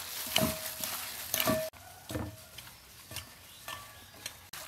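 Salad being tossed by gloved hands in a glass bowl: mixing sounds of the wet ingredients and a metal spoon knocking against the glass, some knocks leaving a short ring. The sound drops quieter about a second and a half in, leaving smaller clicks.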